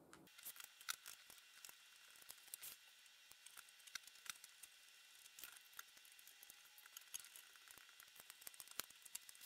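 Faint, irregular clicks and light taps of hands handling a 3D-printed plastic box and its wiring, over a faint steady hiss.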